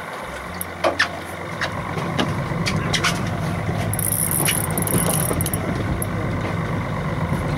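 Boat engine idling steadily, with scattered short clicks and knocks over it.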